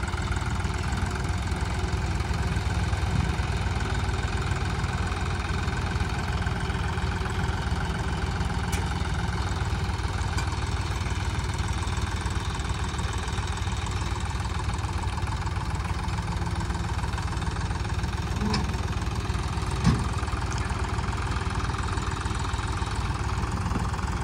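John Deere 5210 tractor's three-cylinder diesel engine running steadily under load as it hauls a heavily loaded straw trolley. There is one short knock about twenty seconds in.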